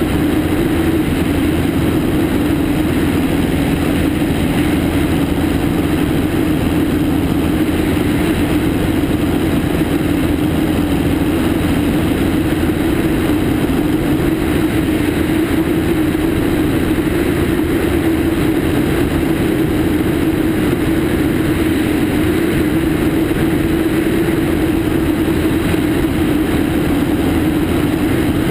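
A Cessna 152's four-cylinder piston engine and propeller running at a steady cruise power in flight, a constant drone mixed with the rush of airflow over a camera mounted outside under the wing.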